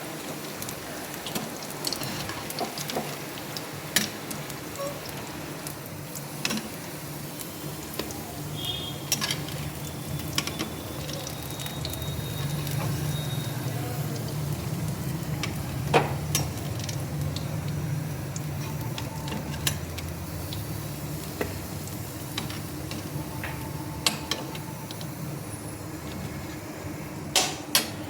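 Pakoras sizzling as they fry in hot oil, with scattered sharp clicks of a utensil stirring against the pan.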